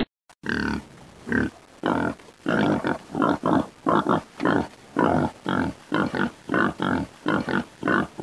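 Piglets grunting: a steady run of short grunts, about two a second, beginning about half a second in.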